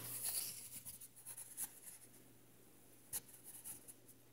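Faint rustling and scraping of a phone being handled as it starts recording, with a few sharp clicks in the first second and a half and one more about three seconds in, over a steady low hum.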